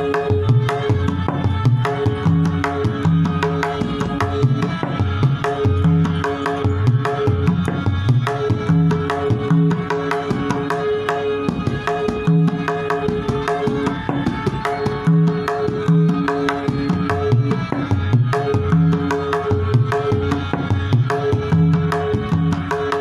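Tabla playing a traditional Farrukhabad kayda in teental: rapid, dense strokes on the treble drum (dayan), with deep bass strokes from the bass drum (bayan) recurring in a repeating cycle.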